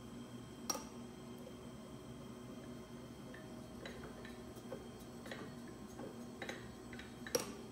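Surface grinder running and taking light passes across the four feet of an Erowa pallet to bring them coplanar. A steady low hum with faint scattered ticks, and a sharp click about a second in and another near the end.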